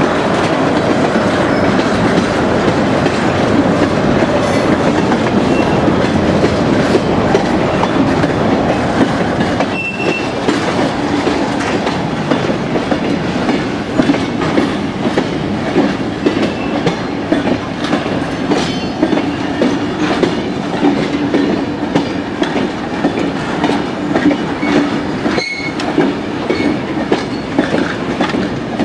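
Rail cars of a passing freight train rolling by: a steady rumble and clatter of tank cars, which about ten seconds in gives way to the lighter, rhythmic clickety-clack of vintage passenger coaches' wheels over rail joints.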